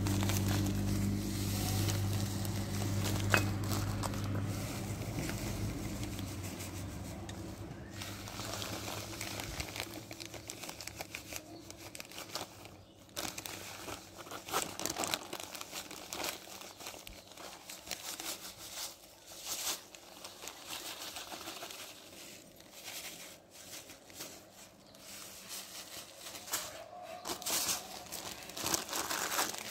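Plastic bag crinkling and rustling in many short, irregular crackles as it is handled and its grainy contents are poured into glass bowls. A steady low hum fades out about six seconds in.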